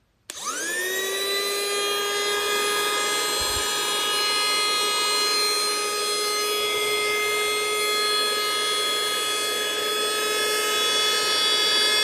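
Portable handheld vacuum cleaner switched on about a third of a second in: its motor spins up in a quick rising whine, then runs at a steady high pitch. It sounds strong, described as quite powerful.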